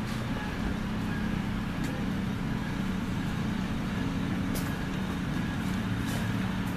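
Steady low rumbling hum of urban background noise, with a few faint light clicks.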